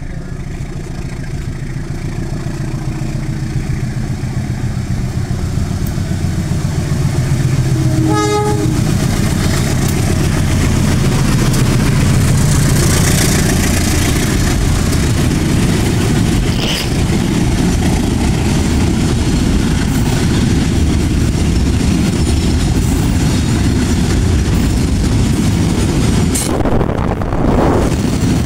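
A loud low rumble builds over the first several seconds and then holds steady. About eight seconds in, a brief horn-like tone sounds.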